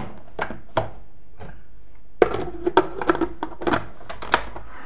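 Plastic clicks and clatter of a Bosch food processor's clear bowl, lid and food pusher being handled and fitted back onto the base. A few knocks early on, then a quick run of clicks from about two seconds in.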